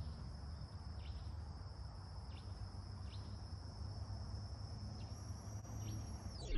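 Faint outdoor background: a steady high insect drone over a low rumble, with about five short high chirps spread across it.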